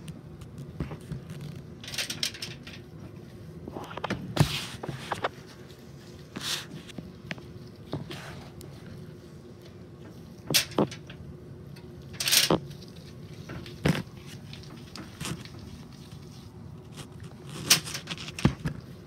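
Aluminium foil crinkling and tapping as gloved hands set raw meatballs down on a foil-lined baking tray: scattered sharp crackles and taps at uneven intervals, with quieter rustling between.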